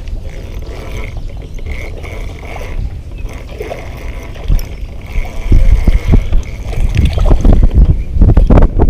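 Wind buffeting the microphone in irregular gusts, loud from about halfway in, over a steady low rumble.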